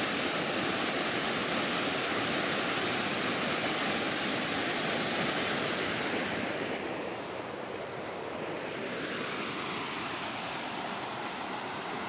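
Small mountain waterfall splashing down over rock slabs: a steady rush of falling water that drops a little in level and gets slightly duller about two-thirds of the way through.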